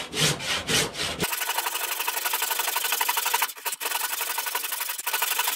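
Handsaw cutting across oak, scoring a guide kerf along the marked cut line. A few separate strokes come first, then about a second in the sawing turns into a fast, continuous rasping.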